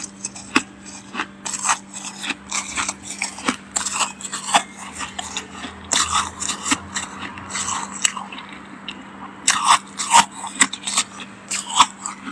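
Freezer frost crunching in many sharp, irregular crackles, like ice frost being bitten and chewed, over a faint steady hum.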